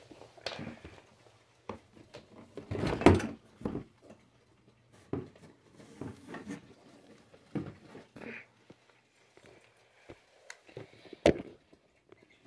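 Irregular knocks and clunks with a faint low hum underneath. The loudest thud comes about three seconds in, and a sharp knock comes near the end.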